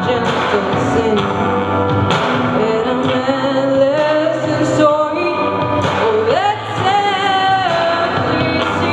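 Music with a singing voice; about six seconds in, the voice rises to a long held note.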